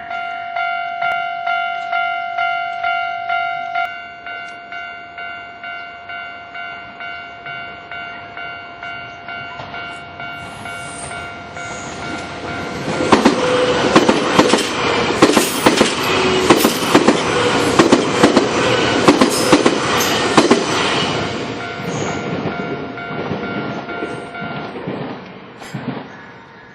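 Japanese level-crossing warning bell ringing about twice a second, louder for the first few seconds and then softer. A train passes over the crossing midway, its wheels clacking over the rail joints, and the bell stops shortly before the end.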